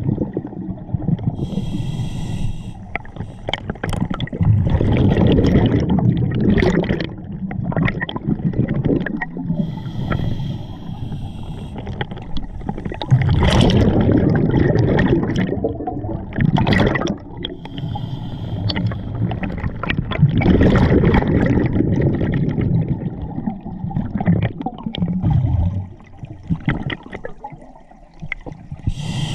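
A scuba diver breathing through a regulator underwater: a short hiss on each inhale, then a long burst of bubbling on each exhale, about three breaths in turn.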